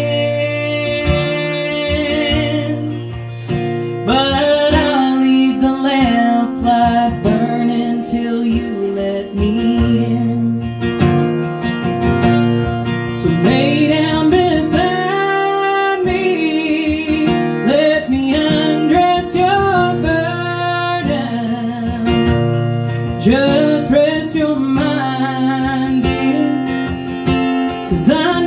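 A woman singing live while strumming her acoustic guitar, a country song with long held sung notes.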